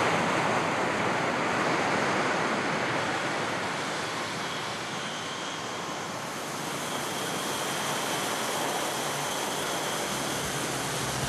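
Sea surf: a steady rushing noise of waves breaking and washing onto a sandy beach.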